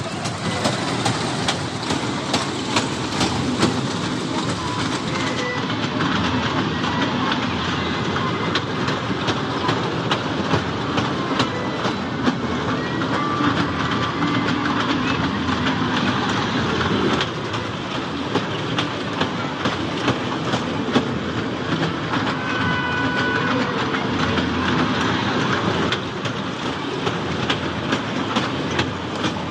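Children's amusement-ride mini train running around its small track, its wheels clattering steadily over the rail joints.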